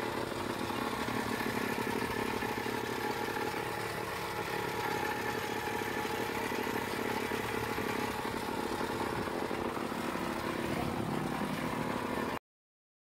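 Small engine of a motorised sugarcane juice crusher running steadily, with a constant hum; the sound cuts off suddenly near the end.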